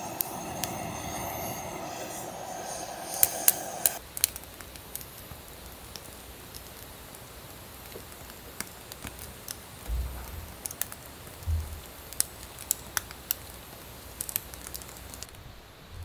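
A handheld butane torch hisses steadily as it is held to firewood in a small metal fire pit, then shuts off about four seconds in. After that the wood fire crackles with scattered sharp pops, and there are two soft low thuds a little past the middle.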